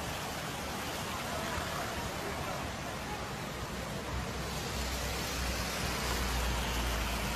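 Floodwater rushing in a steady, even roar, with a low rumble that grows stronger about four seconds in.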